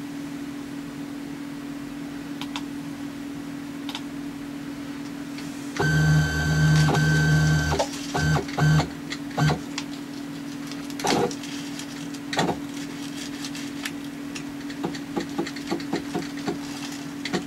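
CNC mill's stepper motors driving an axis with a pitched whine for about two seconds, then three short jogs, as the axis is moved to set the zero again. A steady hum runs underneath, and scattered clicks follow the jogs.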